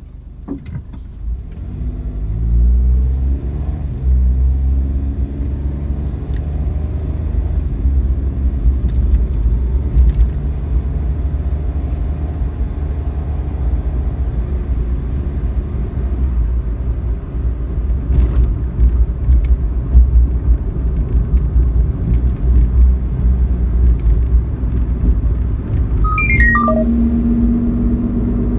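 Suzuki Wagon R MH21S with its 660 cc three-cylinder engine pulling away, its pitch rising over the first few seconds, then cruising with a steady low road rumble. This is a road test listening for the rear wheel-bearing drone.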